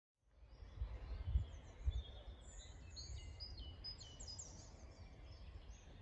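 Outdoor ambience of several birds chirping and singing in short high phrases, over a low rumble that bumps louder a few times in the first two seconds.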